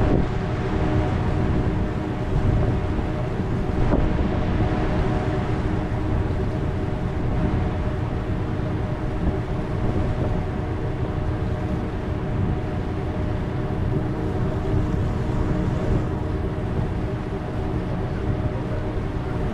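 A vehicle ferry's engines running steadily, a deep rumble with a constant multi-toned hum over it, with wind buffeting the microphone on deck.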